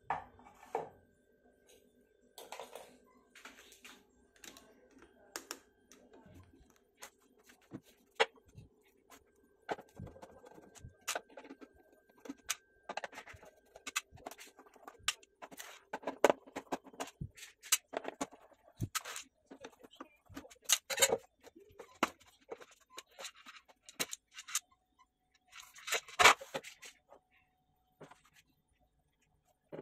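Irregular clicks, taps and knocks of a screwdriver and small screws handled on a Samsung soundbar's plastic casing as it is taken apart. Near the end comes a brief rasping scrape as the casing is opened.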